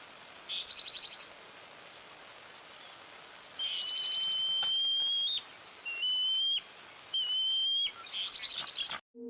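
A songbird singing: a short buzzy trill, then three long, clear whistled notes, each turning up at the end, and another trill before it stops abruptly.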